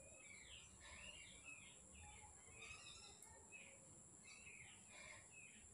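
Near silence with faint background birds chirping, many short quick calls over a steady high hiss.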